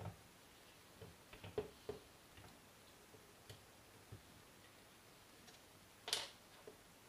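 Scattered light clicks and taps of an airsoft gun's parts being handled during disassembly, several close together about a second in and one sharper click about six seconds in.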